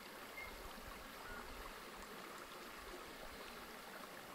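Faint, steady rushing of a flowing river.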